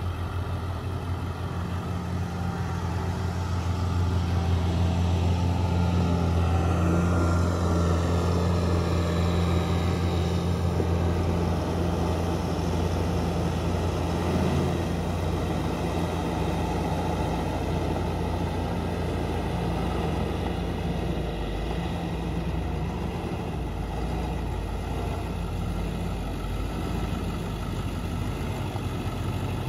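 International school bus's engine running as the bus drives across a gravel lot toward the listener, a steady low hum that grows louder a few seconds in and eases off slightly after the middle.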